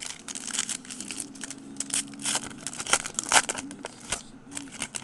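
Foil wrapper of a 2010 Panini Gridiron Gear football card pack crinkling and tearing as it is ripped open by hand, in a fast irregular run of crackles. The loudest crackle comes a little past three seconds in.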